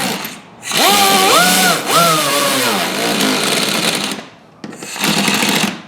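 Power driver running fasteners into the inner fender liner in three runs: a short one ending just after the start, a long one of about three seconds, and a shorter one near the end. Its whine rises and falls as the motor speeds up and slows.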